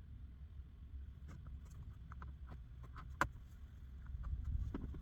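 Scattered light clicks and taps over a low steady rumble, with one sharper click about three seconds in.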